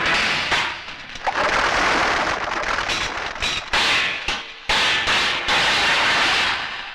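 A film soundtrack's dramatic effects: a run of sharp, whip-like cracks and noisy bursts, dying away near the end.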